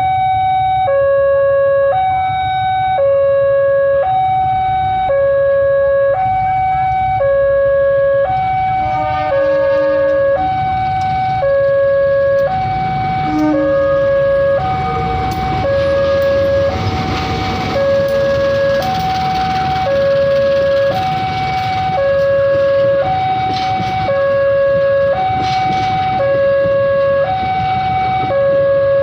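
Railway level-crossing warning siren, very loud and noisy, alternating between a higher and a lower tone about once a second: the crossing's alarm sounding as a train approaches. A broad low rumble runs underneath and thickens in the middle.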